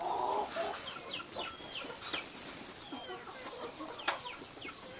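Chickens clucking, with short high chirps scattered throughout and a few soft crinkles of a banana-leaf wrapper being handled.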